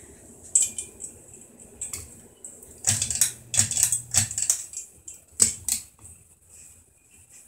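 A ceiling light's globe and fixture being handled by hand, giving a run of sharp clicks and clinks as the globe knocks and turns against its mount.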